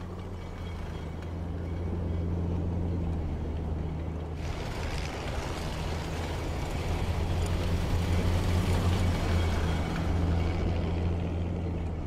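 Tracked over-snow vehicle (a Spryte) driving across sea ice: a steady low engine drone, joined about four seconds in by a rushing track-on-snow noise that is loudest near the middle.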